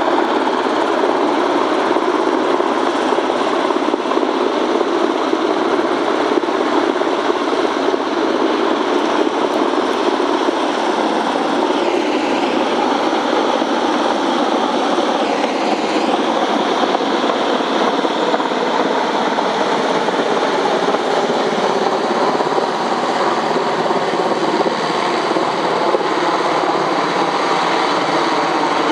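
Sikorsky UH-60A Black Hawk helicopter flying low overhead: a loud, steady sound of main rotor and twin turboshaft engines. It dips in pitch twice about midway.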